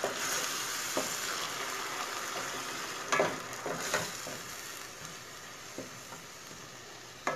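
Tomato paste and onion-garlic-ginger masala sizzling in hot oil in a stainless steel pan while being stirred with a wooden spoon, the sizzle slowly growing quieter. A few light knocks of the spoon against the pan.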